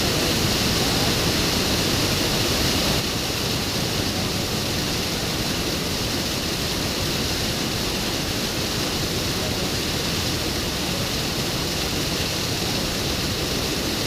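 Steady rushing of a waterfall, dropping a little in level about three seconds in.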